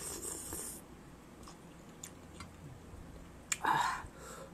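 A woman slurping chow mein noodles off a fork, a hissy slurp that ends about a second in, then chewing with faint scattered clicks. Two short, louder mouth sounds come near the end.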